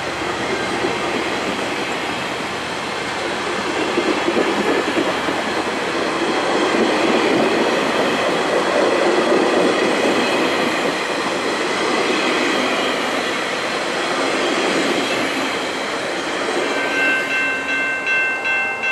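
West Coast Express bilevel commuter train rolling past a level crossing: a steady, loud rumble of wheels on the rails. Near the end, as the last car clears the crossing, the crossing bell rings out plainly at about two strokes a second.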